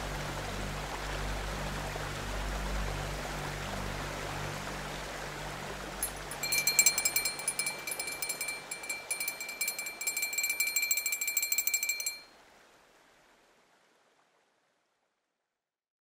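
Steady rush of a waterfall, then about six seconds in an alarm bell rings rapidly for about six seconds, the timer signalling the end of the writing sprint. The ringing stops abruptly and the water sound fades out to silence.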